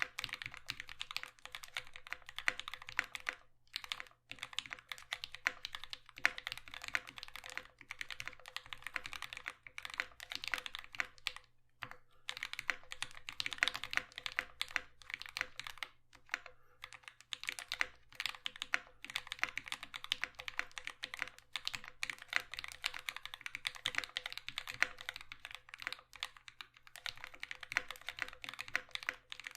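Mechanical keyboard being typed on steadily: a Dolch.CR with lubed and filmed C³ Tangerine v2 linear switches, GMK ABS keycaps, a 4 mm integrated aluminium plate and drawer liner in the case to damp hollow ping. The keystrokes come in fast runs broken by a few short pauses.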